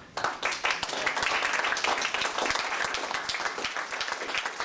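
A small audience clapping, breaking out abruptly and going on steadily.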